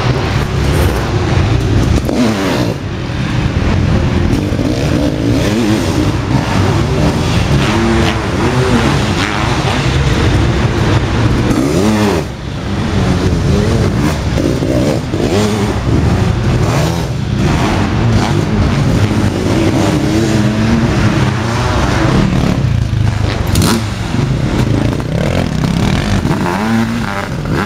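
Sidecar motocross outfits' engines revving hard as they race past, the pitch rising and falling over and over, with a brief dip in loudness about twelve seconds in.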